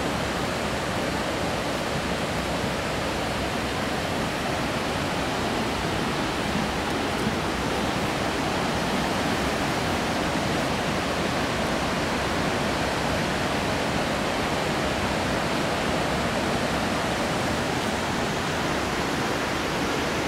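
Maligne River rushing through the narrow canyon below: a steady, even roar of fast water.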